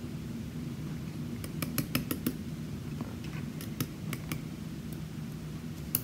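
Small metal lock parts clicking as they are handled during the gutting of a pin-tumbler challenge lock: light, sharp clicks in two quick clusters, about one and a half and four seconds in, over a low steady rumble.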